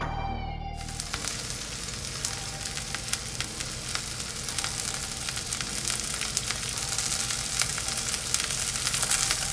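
Stuffed chicken-breast rolls pan-frying in a nonstick frying pan: a steady sizzle with scattered crackles, starting about a second in.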